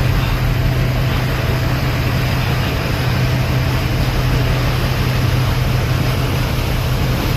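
Roll-on/roll-off ferry's diesel engines running steadily: a constant low hum under an even wash of noise, heard from on board.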